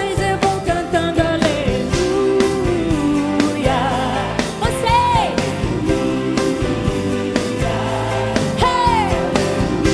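Live gospel worship song: a woman sings the melody over a full band with a steady drum beat.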